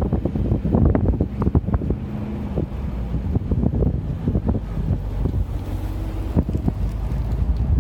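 Wind buffeting a phone's microphone: a steady low rumble with rapid gusty pops, thickest in the first two seconds.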